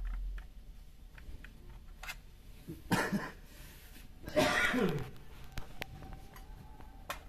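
A person coughs twice, briefly: once about three seconds in and again, longer, about four and a half seconds in. Faint clicks of handling come between the coughs.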